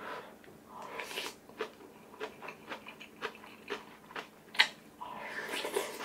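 Close-up eating sounds: chewing and wet mouth smacks on a mouthful of kimchi stew and rice, in short irregular clicks, with one sharp louder click about four and a half seconds in.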